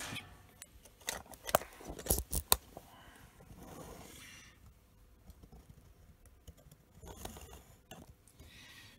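Sharp metallic clicks and knocks, a quick cluster a second or two in, then softer scraping, as the cross-slide handle of a stopped Myford lathe is wound by hand.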